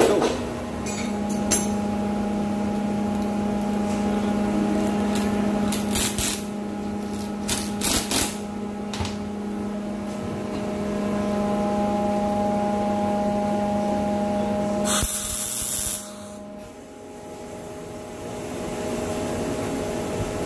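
A steady machine hum in a metalworking shop, with a few sharp clinks of steel parts being set into a welding jig on a steel bench about six to nine seconds in. A short hiss comes about fifteen seconds in, and then the hum cuts off.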